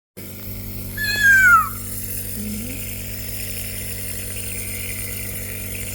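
Nebulizer compressor running with a steady hum. About a second in, a short high squeal falls in pitch and fades, the loudest sound here.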